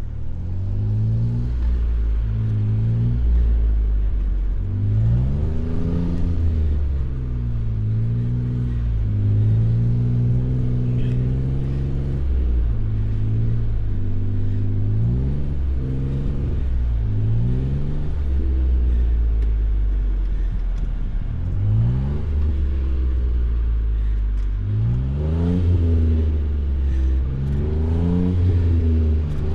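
Jeep engine revving up and down again and again under load, its pitch climbing and dropping every second or two, with a few longer held stretches.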